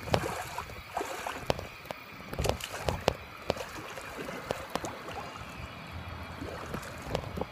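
Swimming-pool water sloshing and lapping close by, with many small slaps and splashes as a swimmer goes under into a handstand and comes back up.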